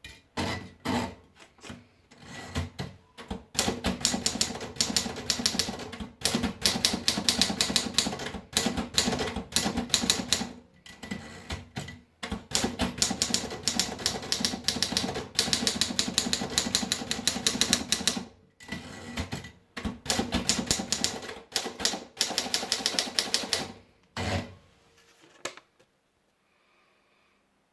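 Remington De Luxe typewriter being typed on: a few separate keystrokes at first, then long fast runs of key strikes broken by short pauses, and a few final strikes near the end.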